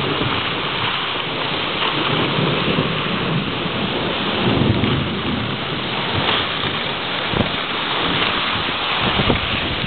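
Thunderstorm: heavy rain pouring steadily and strong wind gusting through the trees, with low rumbles swelling about halfway through and again near the end.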